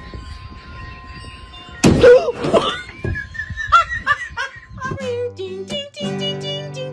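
A voice and laughter over faint music, giving way near the end to a few seconds of held musical notes.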